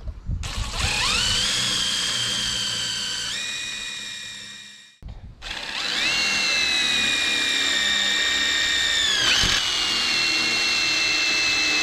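Cordless drill driving screws into a steel bracket: the motor whine spins up, runs for about four seconds and winds down to a stop, then starts again and runs on, dropping slightly in pitch near the end.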